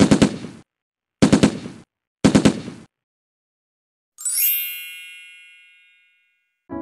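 Intro sound effects: three short bursts of rapid hits about a second apart, then a bright twinkling chime about four seconds in that rings out and fades over about two seconds.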